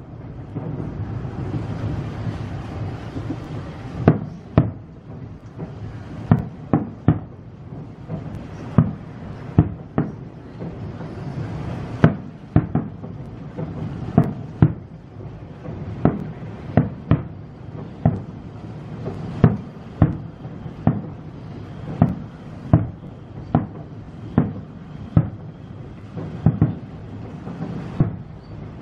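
Aerial fireworks display: shells bursting in a long irregular series of sharp bangs, about one or two a second, over a continuous low rumble. The bangs begin about four seconds in, after a stretch of rumble alone.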